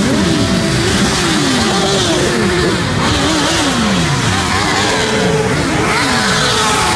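A stream of sport motorcycles riding past one after another, many engines running at once, each engine's pitch falling as it goes by.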